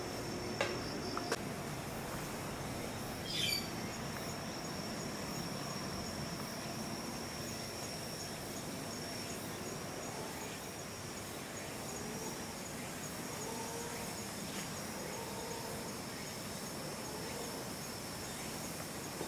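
A steady high-pitched insect trill over a constant outdoor background hiss. Two short clicks come in the first second or so, and a brief wavering bird call about three and a half seconds in.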